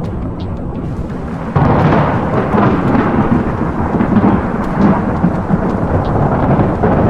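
A sudden loud rumble of thunder breaks in about a second and a half in and keeps rolling, over a steady background drone.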